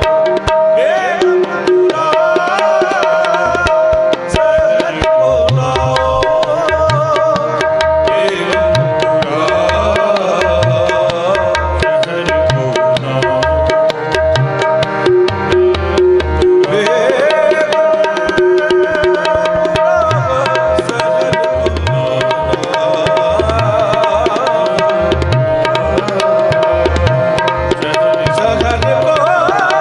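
Sikh kirtan accompaniment: two harmoniums sustain steady reedy chords and melody over a running tabla rhythm, with male voices singing in places.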